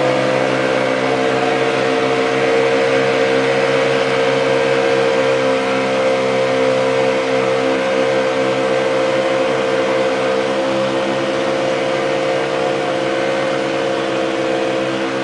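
An engine running steadily at a constant speed, a pitched hum that settles after a short rise in pitch just before.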